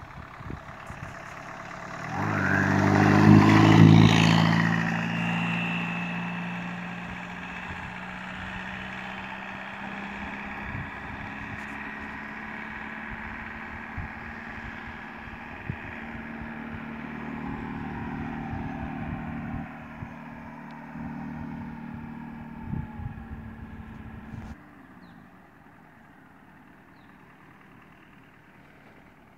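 A 1981 VW Rabbit pickup with a turbodiesel engine drives past at speed, its engine and tyres loudest about three to four seconds in. Its engine note then runs on more quietly and steadily, and the sound drops suddenly about 24 seconds in.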